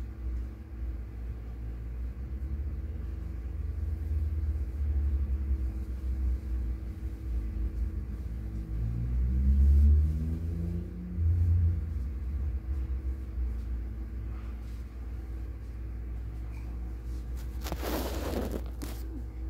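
A low rumble that swells around the middle, with a faint tone that rises and then falls. Near the end comes a short burst of rustling and handling noise as the phone is moved.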